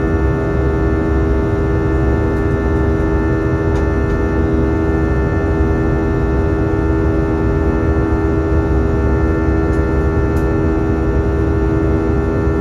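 Steady cabin drone of an Airbus A320's IAE V2500 engines heard from inside the passenger cabin: a loud low rumble with several steady tones layered over it, unchanging throughout.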